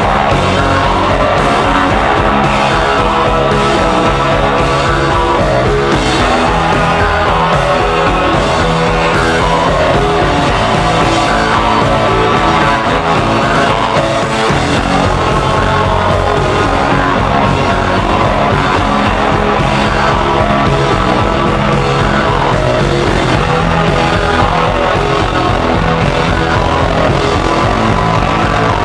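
Loud, dense rock music from a full band playing steadily, with heavy drums and guitars.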